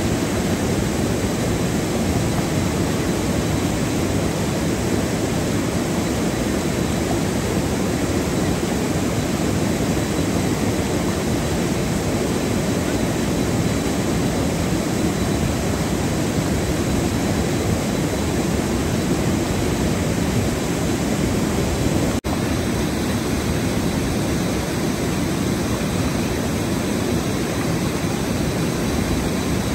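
Steady, loud rushing noise with no tones or rhythm, broken once by a very brief dropout about 22 seconds in.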